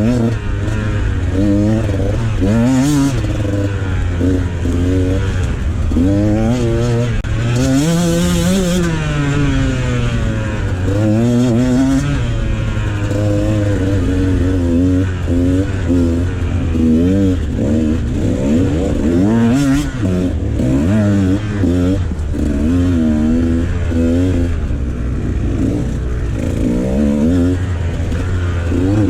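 Dirt bike engine running hard, its revs repeatedly climbing and dropping as the rider throttles through gears and backs off around a motocross track.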